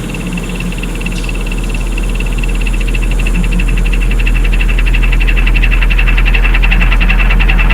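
Experimental electronic music: a deep bass drone swells louder under a high, rapidly fluttering tone and a layer of hiss and hum.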